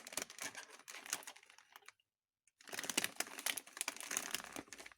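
Plastic snack packet of corn sticks crinkling and crackling in quick irregular bursts as a cat roots inside it with its muzzle. The sound breaks off for about half a second a little after two seconds in, then resumes.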